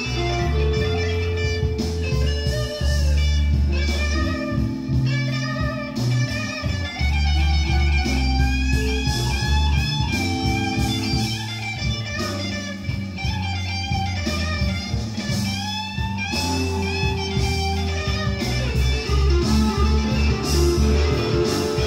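Electric blues recording played back through a Yamaha M-80 power amplifier and hi-fi speakers. Electric guitar plays lead lines with bent notes over a steady bass line and drums.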